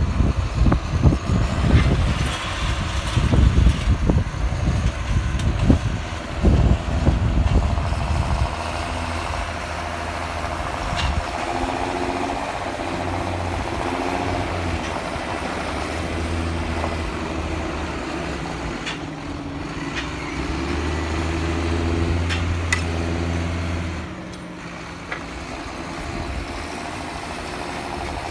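Wind buffeting the microphone for the first eight seconds or so, over the sound of farm tractors. Then a steady tractor engine note that rises and falls, strongest about two-thirds of the way through, and drops away near the end.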